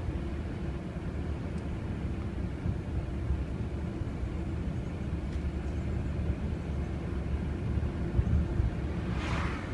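Car cabin noise while driving at low speed: a steady low rumble of engine and tyres on the road. Near the end come two short hissing swishes.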